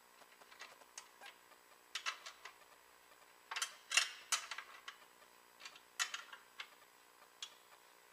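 Wrench clicking and clinking on the take-up plate nuts of a hinged steel belt conveyor as they are tightened to lock in the belt tension: irregular clicks, in small clusters about two, four and six seconds in.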